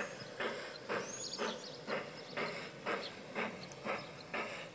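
A G-scale model steam locomotive's sound unit chuffing at a slow, even beat of about two chuffs a second as the engine hauls its train at low speed. A brief high chirp is heard about a second in.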